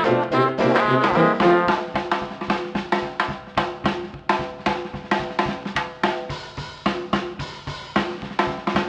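Background music: brass instruments play at the start, then give way about two seconds in to a steady drum beat.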